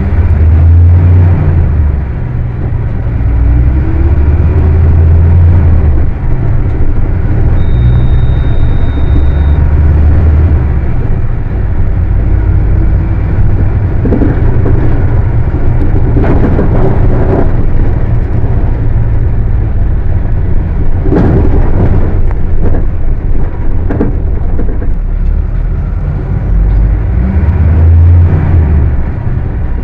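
Volkswagen 17-230 OD bus's diesel engine running hard under acceleration, its pitch rising and dropping back as it revs high through the gears. Several short knocks and rattles come through in the middle and latter part.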